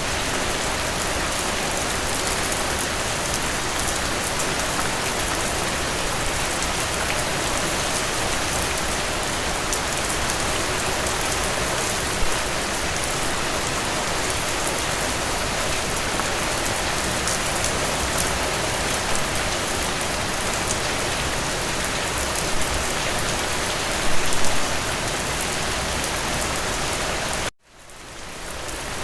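Steady rainfall, a dense even hiss of drops on a surface. Near the end it cuts out suddenly and then fades back in.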